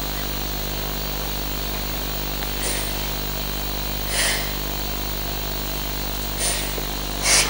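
A steady low background hum, with a woman crying and sniffling in short sniffs about four times, the last near the end.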